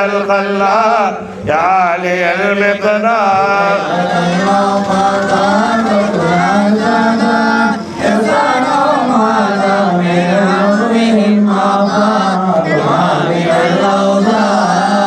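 Men chanting Arabic Mawlid praise verses together in a sustained melodic recitation, with brief pauses for breath about a second and a half in and again about halfway through.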